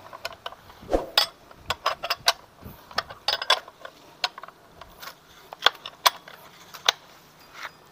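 Hand tools clinking and tapping on the metal parts of a scooter's CVT clutch assembly while its nut is being fitted: a dozen or so sharp, irregular metallic clicks and knocks.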